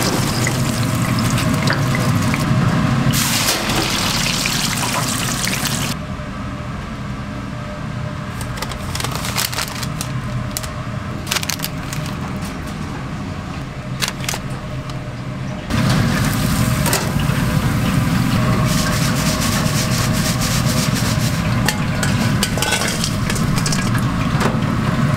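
Hot oil in a commercial deep fryer sizzling loudly as frozen fries go into the basket. About six seconds in it drops to a quieter stretch of light crinkling and clicks as a burger is wrapped in paper, and the loud sizzle comes back about sixteen seconds in.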